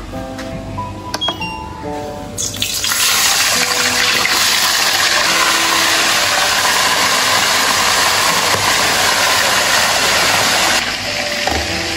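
Pieces of tilapia frying in hot oil in a pan: a loud, steady sizzle that starts suddenly about two and a half seconds in and falls to a lower level near the end. Light background music plays under it.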